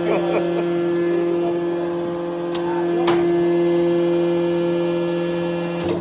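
Hydraulic metal baler's power unit running with a steady hum of a few tones, with a few short clicks partway through and near the end.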